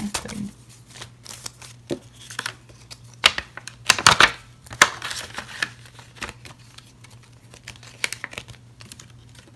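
Paper banknotes rustling and snapping in quick, irregular bursts as they are counted and handled, with the loudest crinkling about four seconds in as bills are slid into a clear plastic envelope sleeve.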